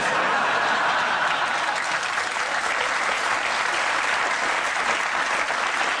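Studio audience applauding, starting right after a punchline, strongest in the first couple of seconds and easing slightly after that.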